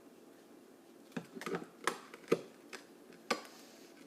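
Frozen pancakes clicking and knocking against each other as they are pried apart: about six short, hard clicks at uneven intervals. The pancakes are frozen rock solid.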